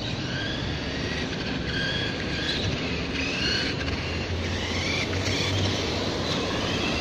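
Electric whine of an RC monster truck's Turnigy XK-4074 2000KV brushless motor and drivetrain running on 4S. The pitch rises and falls several times as the truck speeds up and slows.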